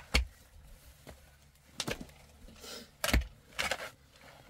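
A few irregular sharp knocks and clatters, about four in all, with a pair close together near the end, the last ringing briefly.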